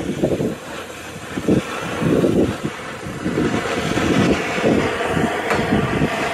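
Oxy-fuel torch flame hissing steadily with uneven low rumbling surges as it heats 3/8-inch steel round stock red-hot so it can be bent around a pipe.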